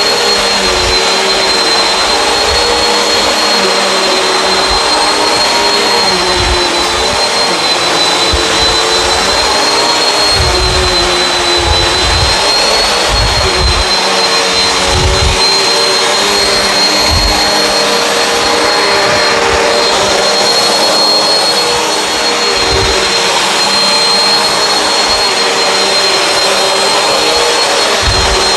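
Bissell CleanView Swivel upright vacuum running on carpet: a steady motor rush with a high whine. The motor's pitch dips slightly and recovers as it is pushed back and forth, with scattered low bumps.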